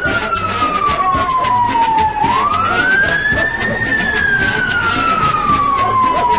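Siren wailing: a slow falling sweep, a quick rise about two seconds in, then another slow fall, with a steady low beat about twice a second underneath.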